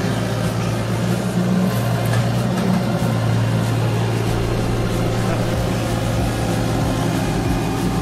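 Sunward mini excavator's diesel engine running steadily.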